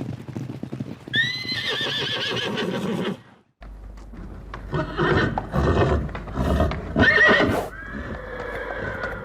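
Horse neighing: a loud, quavering whinny that falls in pitch about a second in. After a brief break come several knocks and snorty pulses, then a second, steadier whinny near the end.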